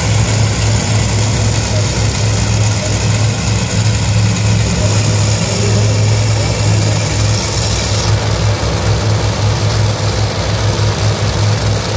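Dragster engines idling at the starting line: a loud, steady low rumble that pulses slightly.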